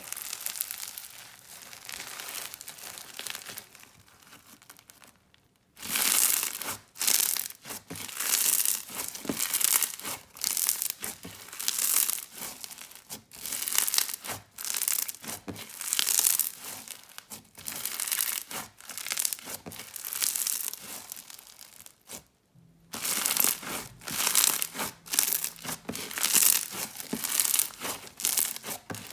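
Clear bingsu bead slime being squeezed and stretched by hand, its beads crackling and crunching in repeated bursts about once a second. The opening few seconds are softer.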